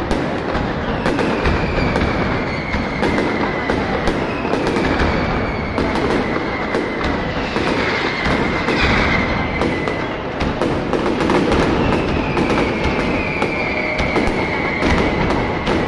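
Mascletà firecrackers going off in dense, continuous volleys of rapid bangs over a heavy rumble. Whistling fireworks sound again and again through it, each whistle sliding slightly down in pitch.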